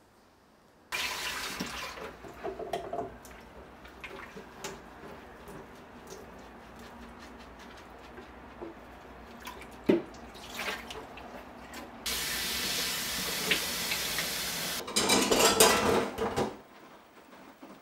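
Kitchen sink tap running and water splashing as dishes are washed by hand, with clinks and knocks of dishware between the runs of water. About twelve seconds in the tap runs steadily for some three seconds, then a louder splashing follows and the water stops.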